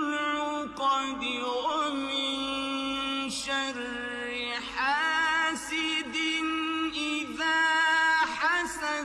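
Melodic Quran recitation: a solo voice chanting in Arabic with long held, ornamented notes and sliding melismas.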